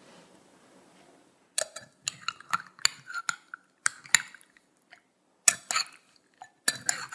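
Metal spoon stirring and scooping cooked tapioca pearls in a small glass bowl: the spoon clinks and scrapes against the glass, in several short bursts starting about a second and a half in.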